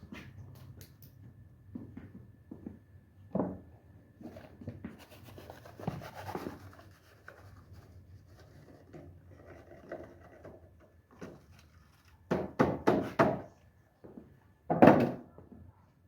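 Scattered soft thumps and rubbing. About twelve seconds in comes a quick run of four heavier strokes, and a single loud thump follows near the end.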